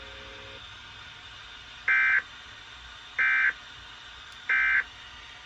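Emergency Alert System SAME digital data bursts: three short, identical bursts of warbling two-pitch tone, evenly spaced about a second and a third apart. Their shortness marks them as the end-of-message code that closes the alert.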